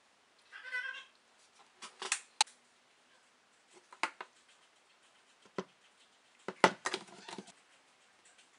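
Plastic bottles and caps being handled and set down on a tabletop: scattered knocks and clicks, with a cluster of them near the end. There is a short pitched squeak just before a second in.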